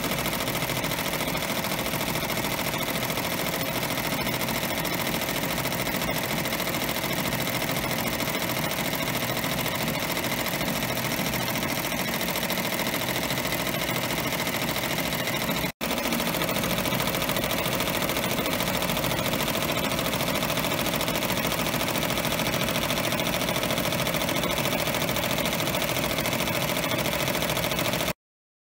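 Multi-needle embroidery machine stitching at speed, a steady, continuous machine clatter, with a brief break about halfway through, and it cuts off just before the end.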